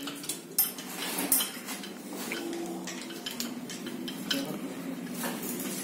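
Metal hand tools clinking and knocking against a gearbox's steel casing and bolts as a spanner works the bolts, a few sharp clinks scattered through.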